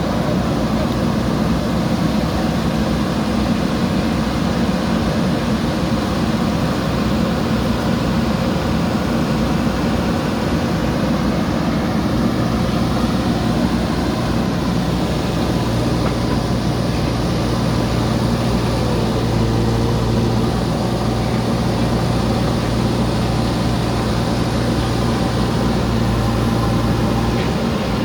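JCB backhoe loader's diesel engine running steadily with a constant low hum.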